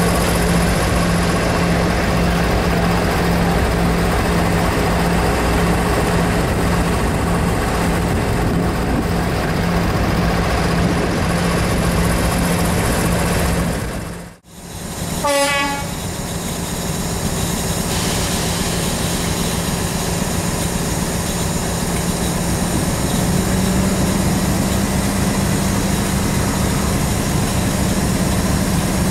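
A Class 56 diesel locomotive runs slowly past with a steady engine hum. After an abrupt break about halfway through, a short horn toot sounds once. Then comes the steady running of a diesel locomotive's engine heard from its cab window on the move; the hum firms up near the end.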